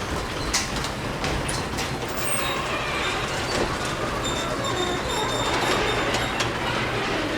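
Garage door rolling along its tracks, a steady rumble and rattle with scattered clicks from the rollers and a thin high squeal in the middle.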